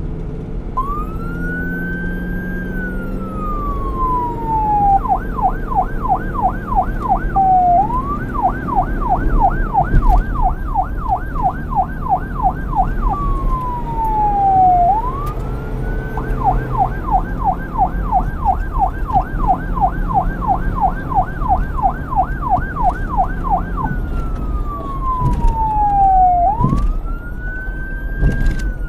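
Police car electronic siren alternating between a slow wail, rising and falling over a few seconds, and a fast yelp sweeping up and down about three times a second, over a low rumble.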